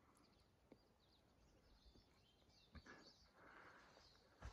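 Near silence: faint mountain ambience with a few faint bird chirps and a couple of soft taps in the second half.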